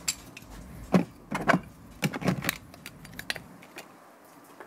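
Metal hand tools (spanners and pliers) clinking and jangling as they are handled, a scattering of sharp clinks over a few seconds.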